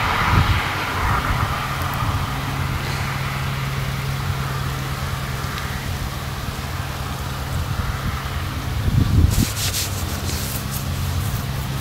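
Diesel tractor engines working steadily under ploughing load, a low even drone. About nine seconds in comes a louder rumble, followed by a dry crackling rattle.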